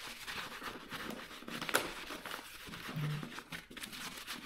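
A cloth or paper towel rubbing and rustling over leather boxing gloves as they are wiped down after being sprayed with cleaner, with one brief sharp sound near the middle.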